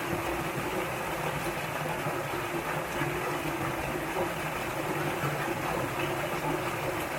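Mountain valley stream rushing in a steady, unbroken wash of water.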